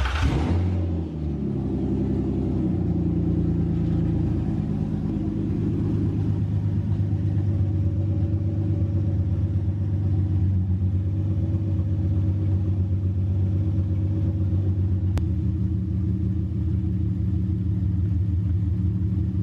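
Nissan 350Z's 3.5-litre V6 on its first start-up after the intake manifold was refitted. It catches abruptly right at the start, wavers for a second or two, then settles into a steady idle.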